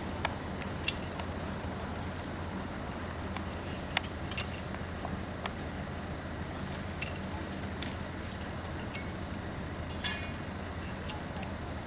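Diesel engine idling with a steady low hum, with scattered sharp metallic clinks and knocks over it; the loudest knock comes about ten seconds in.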